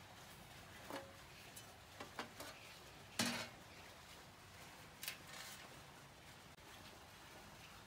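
A few light metallic clicks and clinks from handling the instrument's metal cabinet, spread over the first five seconds with the loudest about three seconds in, over faint steady hiss.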